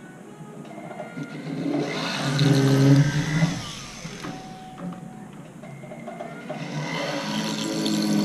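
Foredom flex shaft motor spinning a drill bit through metal sheet, twice: each run builds up in speed and noise, then eases off.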